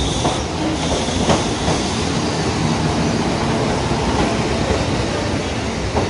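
The Crystal Express, a KiHa 183-series diesel railcar set, pulling into the platform and passing close by at low speed. Its engines run steadily, and the wheels clack over the rail joints a few times about a second and a half in.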